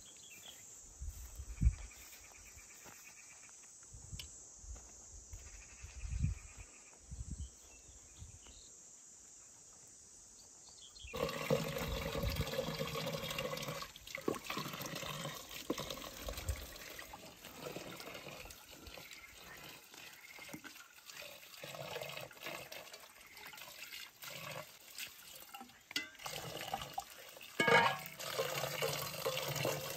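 Water running from an outdoor tap into a plastic bucket and splashing as fresh greens are washed by hand, starting suddenly about a third of the way in. Before that, a few soft thumps, like footsteps.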